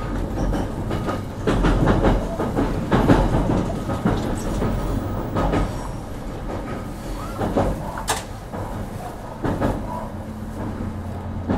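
JR Kyushu BEC819 series DENCHA battery-electric train heard from inside the car while running: a steady low rumble and hum, with irregular clatter and knocks from the wheels over the rails. The clatter is loudest a couple of seconds in and again around eight seconds.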